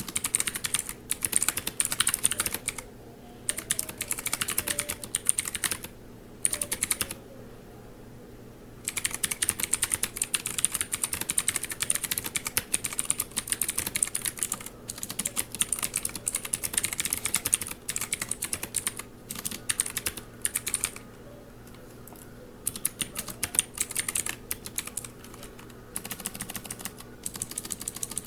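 Mechanical keyboard being typed on in fast runs of key clicks, broken by several short pauses, the longest about two seconds near a third of the way in.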